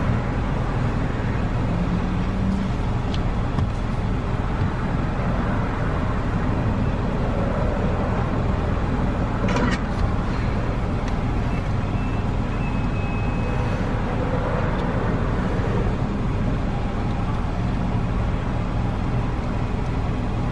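Steady low rumble inside a car's cabin, with the car idling while parked. A single click about halfway through and a faint short beep a little after.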